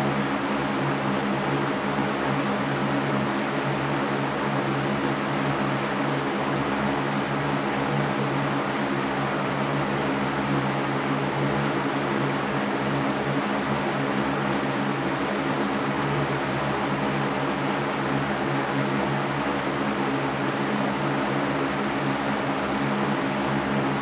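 Mastercraft floor fan running at constant speed: a steady rush of air over a low, even hum.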